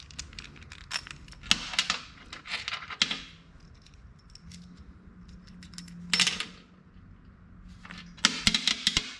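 Steel sockets and washers clinking and rattling as they are handled and swapped, in three short clusters of sharp metallic clicks.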